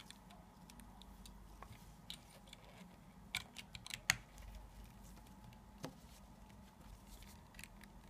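Scattered faint clicks and scrapes as the battery compartment cover on the base of a Zenit-19 camera is closed and its screw turned by hand. The sharpest click comes about four seconds in.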